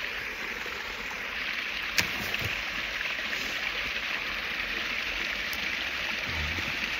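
Creek water running over small cascades, a steady rushing hiss. A sharp click about two seconds in and a soft low thump near the end.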